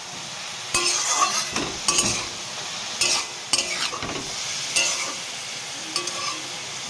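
Chopped bathua greens and flat beans sizzling in hot oil in a metal kadai, with a metal spatula scraping the pan and tossing them in repeated irregular strokes.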